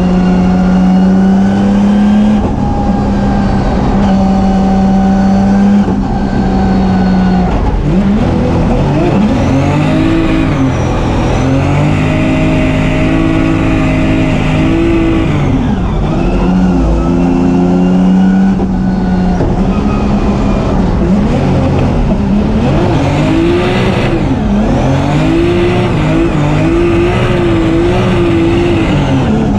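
Turbocharged BMW M3 drift car's engine, heard from inside the cabin. It holds steady high revs for the first several seconds, then revs rise and fall again and again as the throttle is worked through the slides.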